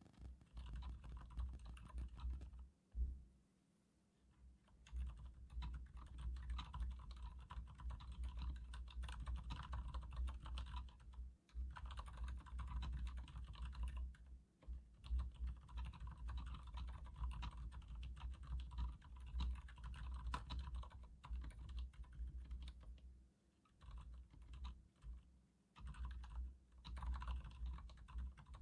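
Typing on a Leopold FC900R mechanical keyboard with Cherry MX Silent Red switches: a fast, continuous run of keystrokes, broken by a short pause about three seconds in and a few briefer gaps later.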